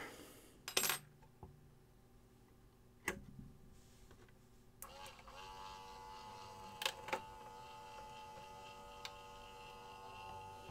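Small electric motor in a 3D-printed buoy-pusher mechanism starting about five seconds in and then running steadily with a faint whine, turning a crank disc and push rod on its first test run. Several sharp clicks come before and during the run, the loudest about three seconds in.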